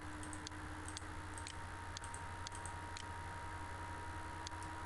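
Light clicks of a computer mouse, coming roughly every half second, over a faint steady electrical hum.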